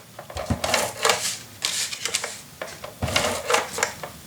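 Paper and cardstock being handled at a craft table, in a run of short, irregular rustles and scrapes.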